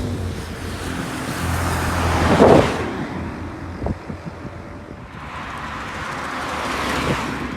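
Motor vehicles passing close by on the road, one after another: the first swells to a peak about two and a half seconds in, its pitch falling as it goes by, and a second swells and fades near the end.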